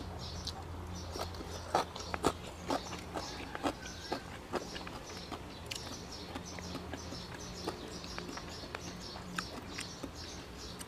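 A person eating close to the microphone: irregular sharp clicks and wet smacks of chewing and mouth sounds, thickest in the first half, over a low steady hum.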